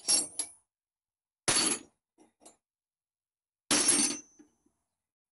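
Steel spanners and hand tools clattering and clinking against each other as a hand sorts through a pile of them. There is a short clatter at the start, a longer one about a second and a half in, two light clinks, then another clatter near four seconds.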